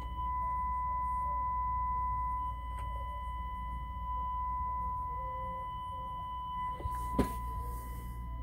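A steady 1 kHz sine test tone from a signal generator, played through a McIntosh MX110 tuner-preamplifier on the test bench, with a faint low hum beneath it. The tone steps up in level just after the start and back down about 2.5 s in, as the balance is set. There is a sharp click about 7 s in.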